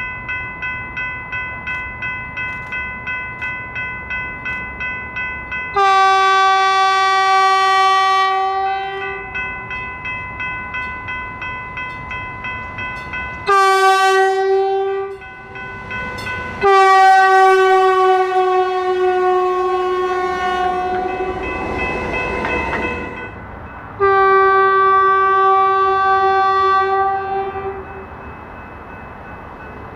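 Horn of a Stadler FLIRT diesel multiple unit sounding four blasts, long, short, long, long, as the train passes close by, the third blast dropping slightly in pitch. A bell rings rapidly, about two strokes a second, through the first half, and the train's running noise swells briefly between the later blasts.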